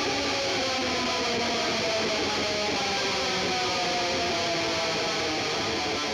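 Distorted electric guitar music, its pitch sliding slowly downward.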